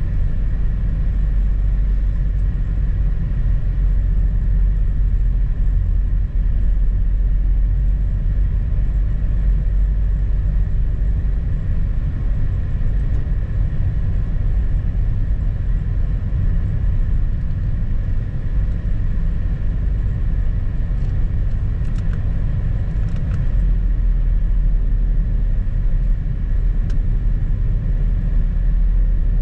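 Steady low rumble of a car driving on a snow-covered road, heard from inside the cabin, with a few faint ticks about three-quarters of the way through.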